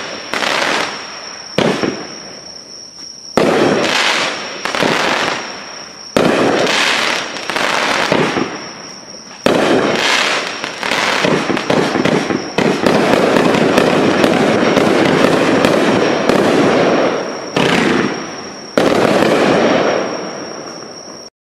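Sunwing 'Ben Franklinstein' consumer firework cake firing shot after shot, one every one to three seconds. Each shot is a sharp report followed by dense crackling that fades. In the middle of the volley the shots come thick enough to merge into continuous crackle.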